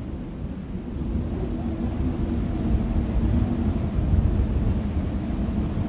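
A low, steady rumble that swells a little toward the middle, with no sharp cracks or bangs.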